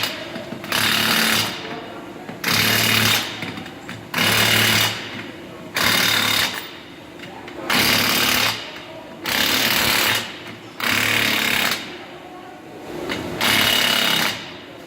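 Impact wrench running the lug nuts tight on a skid steer wheel, rattling in short bursts of under a second, about eight of them, roughly every second and a half.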